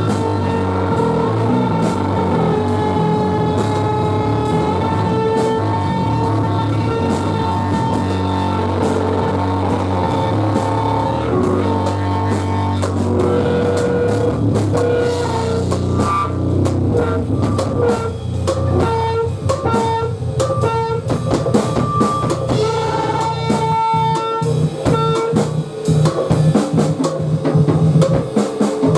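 Live rock band playing loud and noisy: electric guitar and bass hold a sustained droning sound, and from about halfway through the drums come in with dense, irregular hits.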